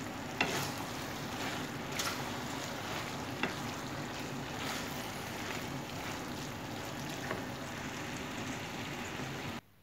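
Wooden spatula and fork tossing pasta in a frying pan, with a few sharp knocks against the pan over a steady hiss and low hum. It cuts off suddenly near the end.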